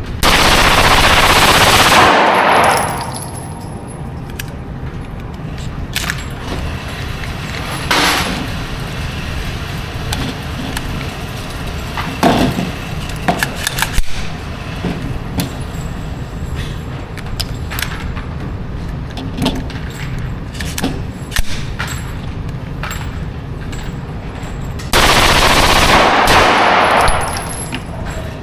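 Semi-automatic AR-style gun with a Super Safety forced reset trigger in rapid fire. There are two long strings of about two and a half seconds each, one right at the start and one near the end, with the shots coming so fast they run together. In between, scattered single sharp cracks.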